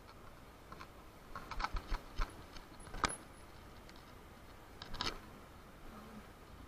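Keys jangling in short bursts, with a single sharp click between them.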